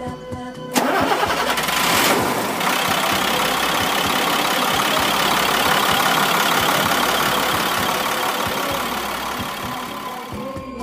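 Diesel engine of a 2002 International 4300 box truck starting up less than a second in, then running steadily.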